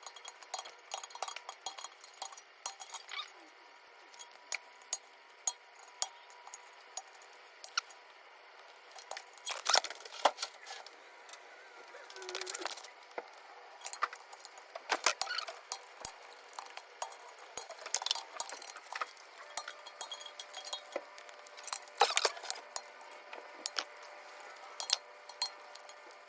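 Metal hand tools and suspension parts clinking and tapping against each other in irregular, scattered strikes.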